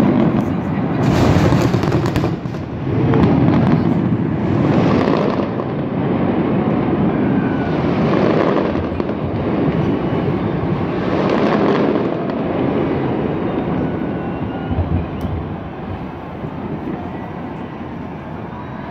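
Fireworks shells bursting in rapid succession, their bangs running together into a continuous rumble. It swells every few seconds and eases off near the end.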